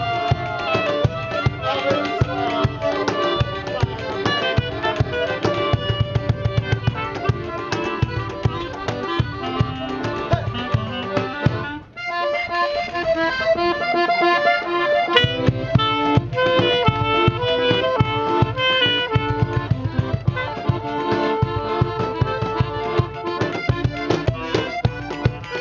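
A live band playing a song, with a pitched melody over chords and a steady drum beat. About halfway through the music breaks off for a moment, and it comes back for a few seconds without the drums before the beat returns.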